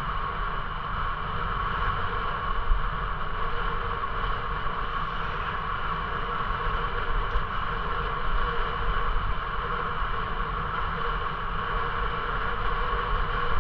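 Steady rolling noise from a bicycle riding at an even speed on a paved path, with wind buffeting the microphone in an irregular low rumble.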